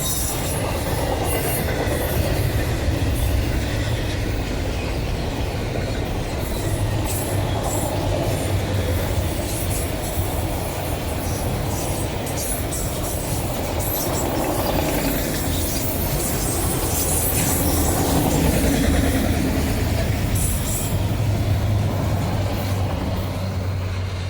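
Norfolk Southern freight train's cars rolling past at speed: a steady, loud rumble of steel wheels on rail with a running clatter of clicks as the wheels cross rail joints.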